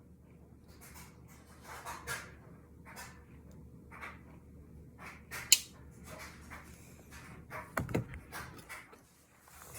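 Soft breathy puffs on a tobacco pipe, short draws roughly once a second, with one sharp click about five and a half seconds in.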